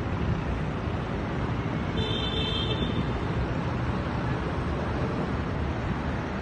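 Steady low rumble of wind buffeting the microphone while cycling, mixed with road traffic noise. A brief faint high-pitched tone sounds about two seconds in.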